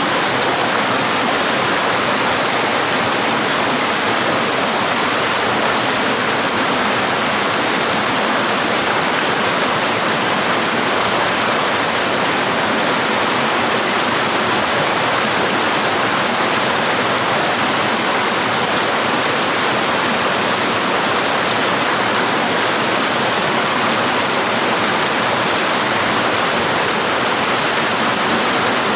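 Small waterfall and stream: a steady, even rush of falling and flowing water.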